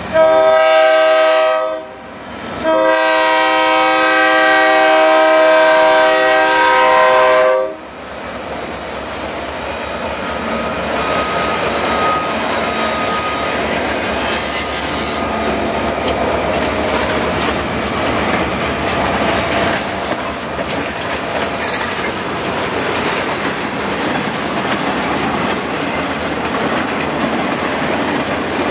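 Freight-train diesel locomotive sounding its multi-note air horn in two blasts, the second held for about five seconds. The train's freight cars then roll steadily past with continuous wheel-on-rail noise.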